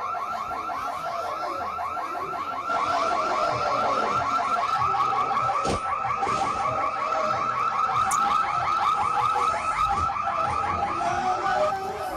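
An electronic alarm sounding a fast, continuous warble that gets louder about three seconds in.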